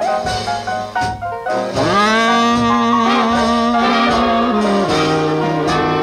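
A 1947 R&B jazz band recording played from a 78 rpm record. A horn section of saxophones and brass plays; about two seconds in the horns swoop up into a long held chord, which moves to a new chord just before the end.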